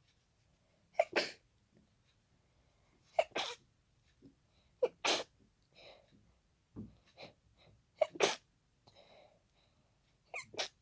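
A hay-fever sneezing fit: a person sneezes five times in quick succession, about every two to three seconds. The sneezes are congested, with softer sniffs and breaths between them.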